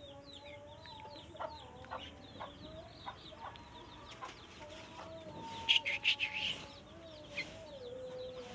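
Sooty-headed bulbul (trucuk) calling: many short falling chirps, with a louder burst of chattering about six seconds in, and a low wavering drawn-out note beneath.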